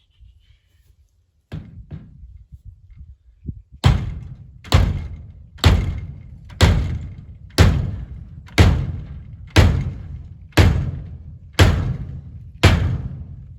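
Hammering: a couple of scattered knocks, then from about four seconds in a steady run of about ten hard blows, one a second, each ringing briefly.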